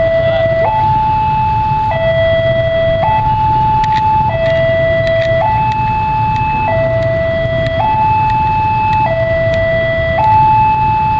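Railway level-crossing warning alarm sounding a steady two-tone hi-lo signal, each tone held a little over a second, warning that a train is approaching. A low rumble of traffic runs underneath.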